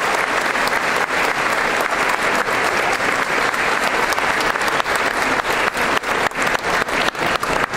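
Audience applauding, the dense clapping thinning to more scattered individual claps near the end.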